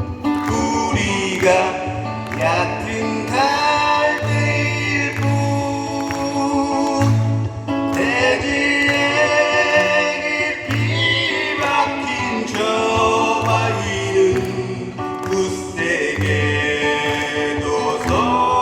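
A Buddhist monk singing a melodic song in a sweet male voice over instrumental backing with a steady beat and bass line.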